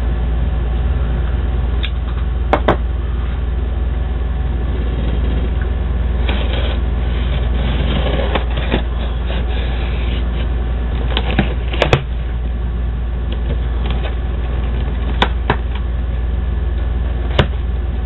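A steady low hum, with scattered sharp clicks and stretches of rustling as a taped cardboard shipping box is handled and opened.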